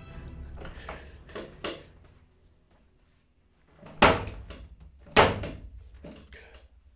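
A man reacting excitedly, close to his microphone: two loud, sharp bursts of noise about a second apart, then a few weaker ones. They are heavy huffs of breath or knocks against the mic or desk.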